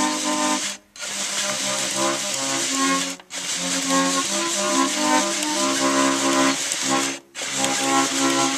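Hand-cranked Tournaphone player organ playing a tune from a perforated paper roll in steady held chords, with a breathy air hiss behind the notes. The sound cuts out briefly three times: about a second in, around three seconds, and near seven seconds.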